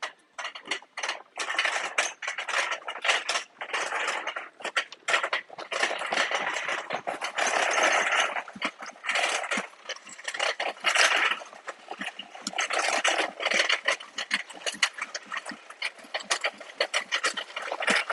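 Wire shopping cart rattling and clattering as it is pushed over a tile floor, its wheels and basket giving off a dense, uneven run of clicks, with the boxed goods inside jostling.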